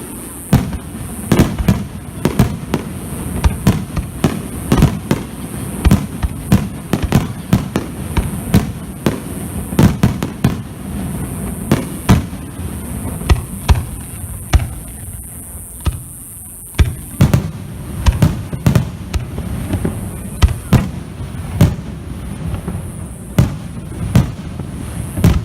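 Fireworks bursting in quick succession: dozens of sharp booms, several a second at times, over a continuous low rumble.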